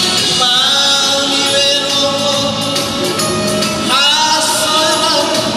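A man singing a Korean trot song into a microphone over an amplified band backing track, holding long wavering notes that each slide up at the start, about half a second and about four seconds in.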